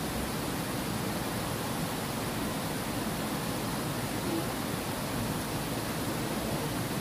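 Water pouring steadily over a low concrete weir into a pool: an even, unbroken rushing.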